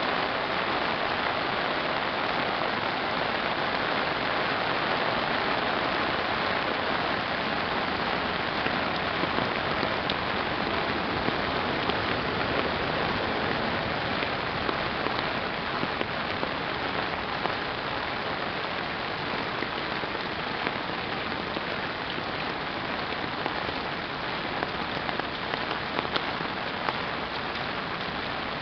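Heavy downpour pouring onto a paved road: a dense, steady hiss of rain with scattered sharp drop ticks. It eases slightly in level through the second half.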